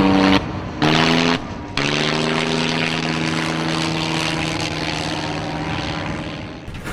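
Fokker D.VII biplane's piston engine and propeller droning in flight. The pitch jumps between a few short cuts in the first two seconds, then holds as one steady drone that dips slightly near the end.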